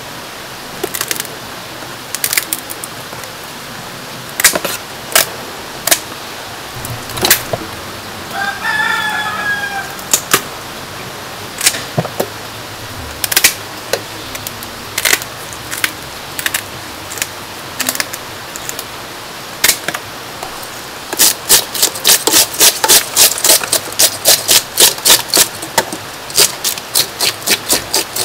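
Sharp knocks and clicks as a grass carp is cut and handled in a stainless-steel sink, with a rooster crowing once about nine seconds in. About two-thirds of the way through, fast scraping strokes begin, about four a second, as a scaler strips the scales off the carp.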